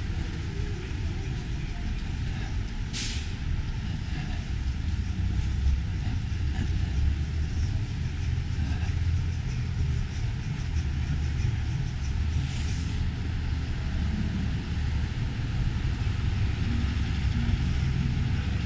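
Street traffic rumbling steadily, with a city bus among it, and two short air-brake hisses about three seconds and about twelve seconds in.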